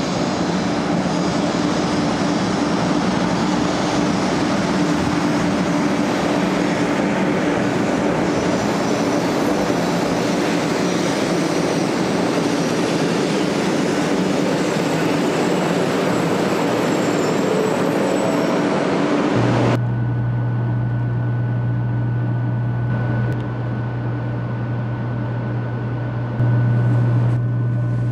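500 series Shinkansen train running in along the platform with a loud steady rush and a constant tone. About two-thirds of the way through it changes abruptly to a steady low hum inside the train car, which gets louder in a step near the end.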